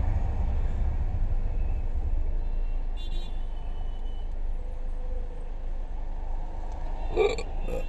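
Steady low rumble of road and engine noise from a moving vehicle, with a brief, louder pitched sound near the end.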